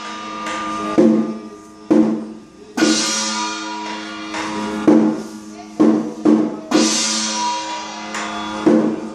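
Chinese temple ritual percussion: drum and metal percussion struck at an uneven beat, about nine strokes, each one ringing on for up to a second or two, accompanying a spirit-medium trance.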